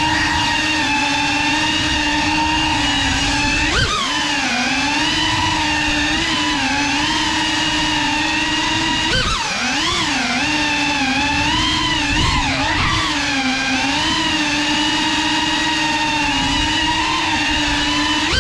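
GEPRC Cinelog 35 cinewhoop's brushless motors and propellers whining, the pitch wavering up and down with the throttle. Sharp swoops in pitch about four seconds in, about nine seconds in, and again at the end.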